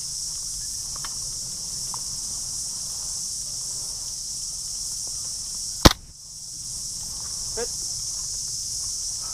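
Steady high-pitched chorus of insects. About six seconds in there is one sharp, loud crack.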